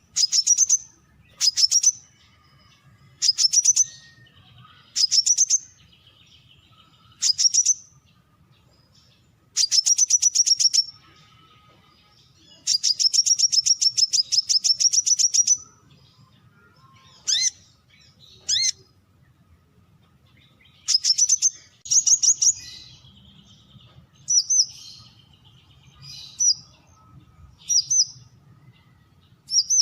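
Brown-throated sunbird calling: bursts of rapid, high, sharp notes repeated every second or two, with two longer trills of a few seconds each, the longer one in the middle. Fainter chirps sound in the gaps between bursts.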